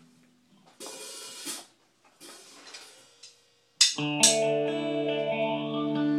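Live band tuning into a song: a couple of soft, hissy cymbal swells, then about four seconds in a guitar chord is struck twice and left ringing.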